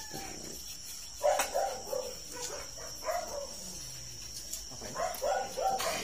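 French bulldog whining in short yelping cries, two quick runs of four about four seconds apart with a few single cries between, over a steady high insect trill.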